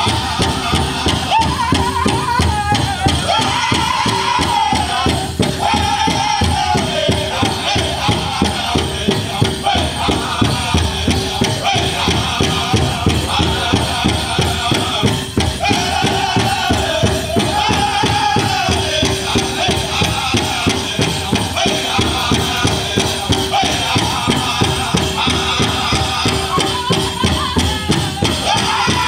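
Pow wow drum group singing a chicken dance song over a big powwow drum struck in a steady, fast beat, with a jingling of dancers' leg bells.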